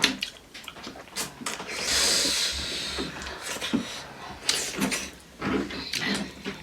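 Close-up eating sounds: chewing and lip-smacking on spicy chicken feet, with short clicks and knocks, and a breathy hiss lasting about a second near the middle.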